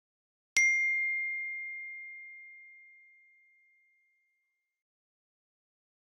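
A single bright ding about half a second in: one clear high tone that rings on and fades away over about four seconds.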